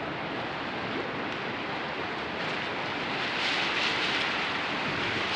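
Very heavy rain pouring down steadily, getting a little louder about three seconds in.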